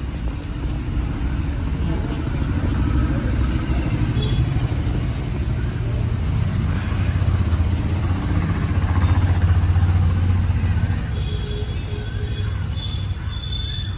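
Electric pet hair clipper running with a steady low buzz as it shaves the fur around a dog's ear.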